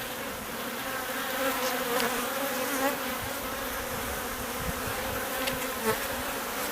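Honey bees in an opened hive buzzing steadily, the hum of many bees wavering slightly in pitch.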